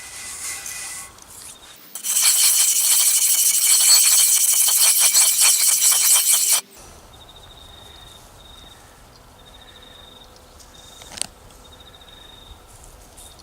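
Natural sharpening stone being lapped flat on a concrete paver: a loud, gritty scraping of stone on abrasive for a few seconds, stopping abruptly, which flattens and cleans up the stone's face. Crickets chirp faintly before and after.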